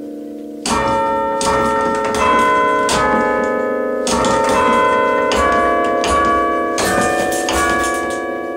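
A chime of tower bells played by hand from a wooden-handled chime stand, ringing out a tune. A fading bell tone gives way, under a second in, to struck notes about every half second, each one ringing on under the next.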